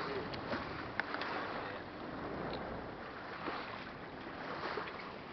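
Water rushing and splashing along a small sailboat's hull as it moves through choppy water, with wind on the microphone. A couple of sharp knocks sound in the first second or so.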